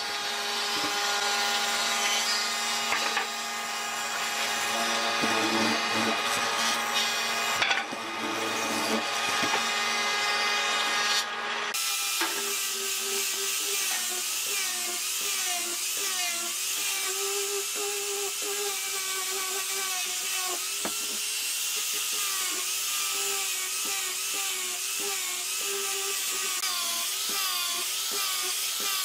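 A hollow-chisel mortising machine running as it cuts into wood, with a steady motor hum. About twelve seconds in, it gives way to an angle grinder with a sanding disc running against a curved wooden leg, its whine wavering up and down in pitch as it is pressed into the wood.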